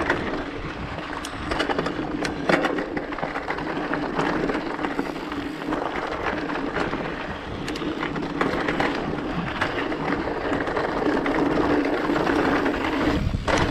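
Mountain bike rolling over a rough dirt trail: steady tyre and drivetrain noise with frequent short knocks and rattles as the wheels hit bumps.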